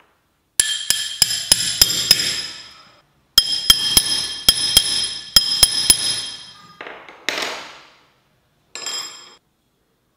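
A hammer striking a steel rod held against a small gold ring piece: two runs of quick strikes, about six and then about eight, each ringing with a bright metallic tone. Two softer rustling sounds follow near the end.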